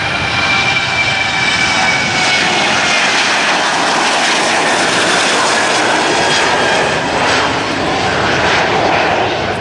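Jet engines of a Boeing 737 airliner at takeoff thrust as it lifts off and climbs away: a loud, steady roar with a high whine that sinks slightly in pitch over the first couple of seconds.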